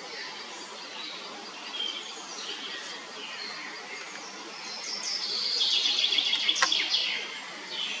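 Birds chirping and calling over outdoor background noise, the chirping growing denser and louder for a couple of seconds past the middle, with one sharp click during it.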